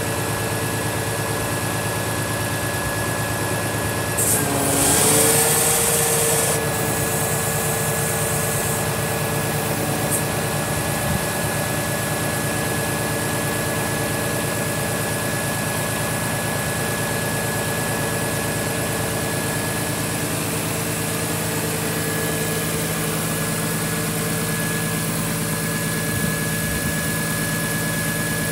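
Scania R410 hooklift truck's six-cylinder diesel idling with its hydraulic pump driving the JOAB hook arm up, a steady hum with whining tones over it. About four seconds in comes a burst of hiss of about two seconds, during which the whine dips and then settles at a new pitch.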